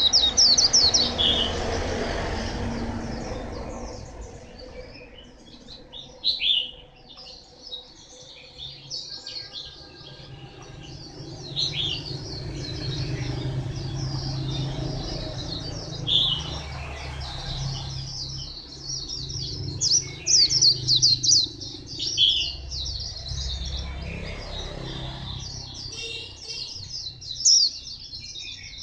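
Caged white-eye singing: long runs of rapid, high, twittering chirps and trills in bursts. A low steady hum sits underneath.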